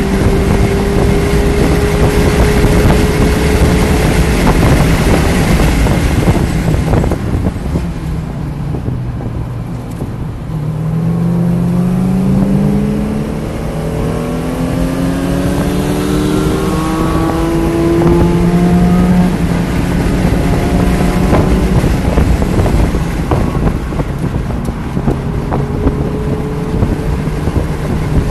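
2019 Mazda MX-5 Miata's 2.0-litre four-cylinder engine at track pace, heard from inside the car under heavy wind and road noise. About a quarter of the way in the engine sound drops away as the driver lifts off. It then pulls back up, rising in pitch for several seconds as the car accelerates, and settles at speed.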